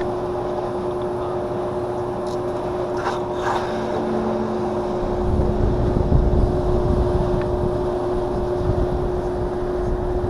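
Evaporative cooler's blower motor running on its low setting, a steady hum over the rush of moving air.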